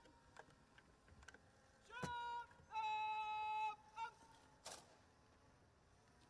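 Faint, drawn-out calls at a military guard of honour, each held on one steady pitch: two about two seconds in, the second lasting about a second, then a short one at about four seconds. A brief noisy clatter follows near five seconds.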